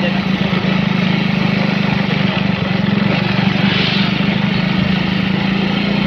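Motorcycle engine running steadily while riding, with a constant hum and wind and road noise.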